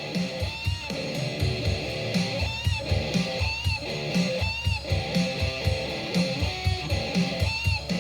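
Background music: an upbeat guitar track with plucked and strummed guitar over a steady beat.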